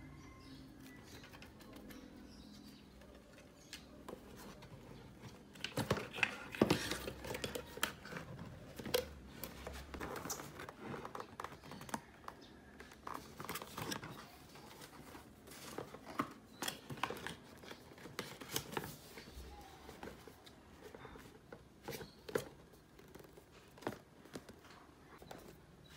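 Cardboard packaging being handled and folded shut: scattered light taps, scrapes and paper rustles, busiest from about six seconds in.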